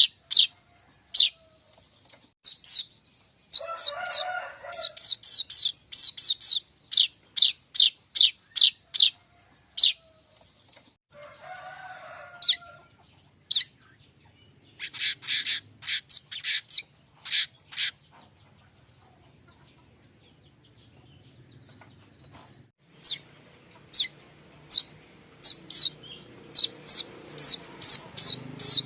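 Streaked weaver (manyar kembang) calling: a run of short, sharp, high chips, about two to three a second, that falls silent for several seconds past the middle and then starts again. Twice a lower, rougher call of about a second and a half joins in.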